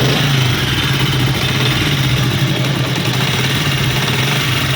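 Small single-cylinder four-stroke motorcycle engine of a Honda CD70-type bike idling steadily with an engine noise. The mechanic traces it to valve tappets set too loose, a clatter easily mistaken for a worn timing chain.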